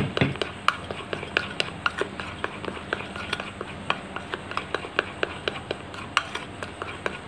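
Metal spoon stirring thick egg-white glaze in a small ceramic bowl, clicking and scraping against the bowl several times a second as mocha paste is blended in.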